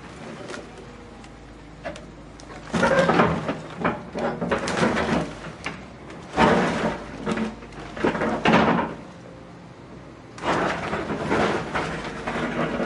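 House being demolished: clusters of crashing, banging and scraping as the structure breaks up, in three long bursts with quieter stretches between.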